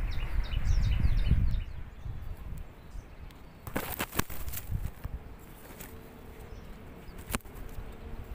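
Rustling and knocking in a mango tree as a bamboo pole is worked through the branches: a low handling rumble for the first second and a half, then several sharp knocks and leaf rustles, the loudest cluster a little under halfway through. Faint bird chirps sound in the first second.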